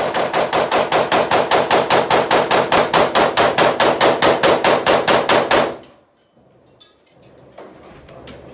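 Rifle firing a long, rapid string of shots, evenly spaced at about five a second, for about six seconds before stopping suddenly; quieter scattered noise follows.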